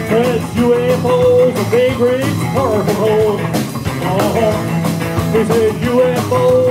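Live rockabilly band playing: drums, upright bass and electric guitar, with steady drum hits under a wavering melody line.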